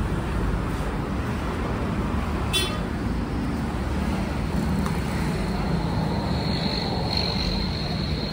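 Steady road-traffic noise with a low hum underneath. A brief high squeak about two and a half seconds in, and a thin high whine over the last couple of seconds.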